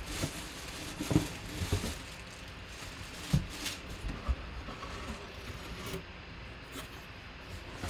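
Cardboard box being handled and its flaps pulled open, with cardboard scraping and several dull knocks, most of them in the first half.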